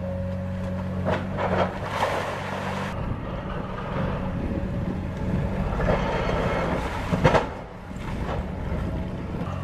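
Komatsu PC350LC excavator's diesel engine running steadily, then the crunching and knocking of its Xcentric Ripper XR40 attachment working rock, with sharp knocks around two and seven seconds in.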